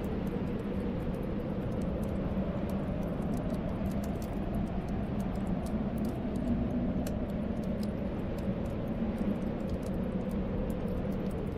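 Snowstorm wind moaning steadily, its low pitch slowly wavering, with many small sharp crackles of a wood fire in the fireplace over it.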